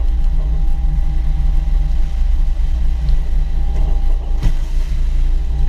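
Engine of a Sealegs amphibious boat running steadily as the boat drives on its wheels down a concrete ramp, with one brief knock about four and a half seconds in.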